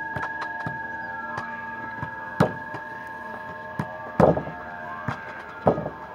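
Soccer ball being kicked and slamming against wooden board walls: three loud hits, about two seconds apart, with lighter taps and bounces between them.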